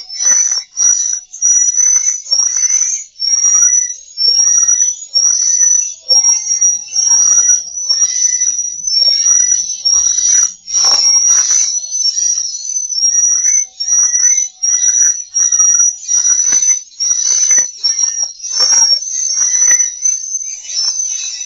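Swiftlet call sound, a recorded lure track of swiftlet twittering used to draw swiftlets in to roost: rapid high chirps, about two a second, over busy lower twittering and clicks.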